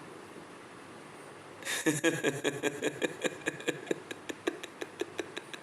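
A rapid series of sharp clicks, about five a second, slowing slightly. It starts a little under two seconds in and stops shortly before the end.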